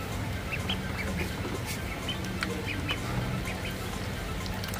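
Ducklings peeping in scattered short, high chirps, with light taps and clicks as they peck at food in a plastic dish.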